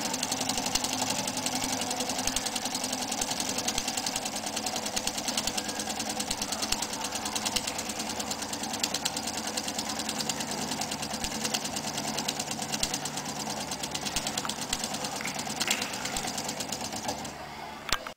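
Small model steam engine running fast, a rapid, even mechanical clatter, dying down near the end.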